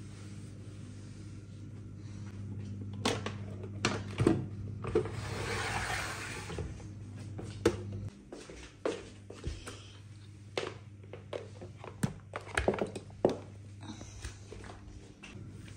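Knocks and clatter of kitchen items and small appliances being handled and set down on hard surfaces, a dozen or so separate thuds and clicks, with a brief rubbing sound of cloth on the worktop a few seconds in. A steady low hum underneath stops about halfway through.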